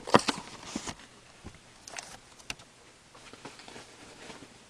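Cardboard trading-card hobby box being opened by gloved hands: a quick cluster of sharp cardboard clicks and scrapes in the first second as the lid is pulled open, two more clicks about two seconds in, then faint rustling.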